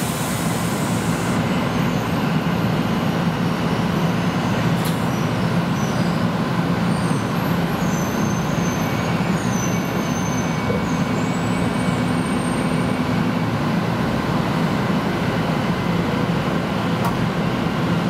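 Electric passenger train running, heard from inside the car: a steady rumble of wheels on the rails with a low hum, and a few faint high squeals about halfway through.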